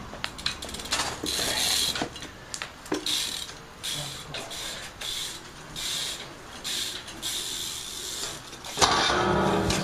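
BMX bike's rear hub freewheel ratcheting in short bursts, about one a second, as the bike rolls. Near the end a louder, steady rolling sound begins as the bike comes close.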